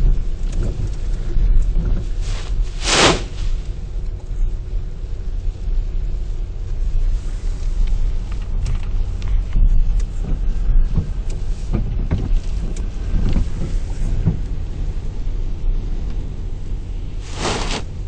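Storm wind of 50–60 mph on the microphone and breaking lake waves: a heavy, steady low rumble under a wash of surf. Two loud surges of noise stand out, about three seconds in and near the end.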